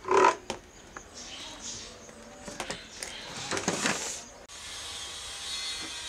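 A rubber hose connector is pushed and worked onto a plastic tap spout by hand, giving irregular scraping, rubbing and squeaking handling noises with a few knocks. About four and a half seconds in, these stop abruptly and a steady hiss remains.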